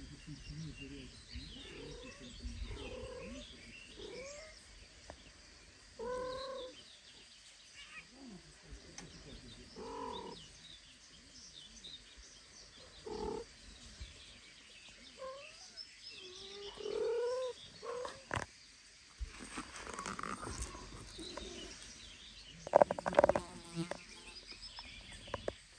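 Short mews and chirps from British cats, a golden kitten and its mother, every few seconds, each call bending up and down in pitch, with one louder call near the end. Small birds chirp faintly in the background.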